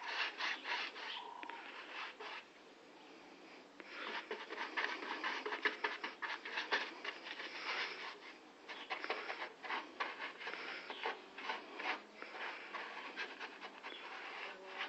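Hand sanding: rapid back-and-forth rubbing strokes on vehicle bodywork, with a pause of about a second and a half a little over two seconds in.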